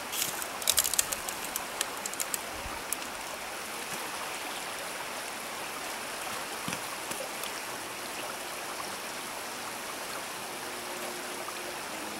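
Small rocky headwater stream flowing steadily, a constant rushing hiss of water over stones, with a few sharp clicks and taps in the first three seconds.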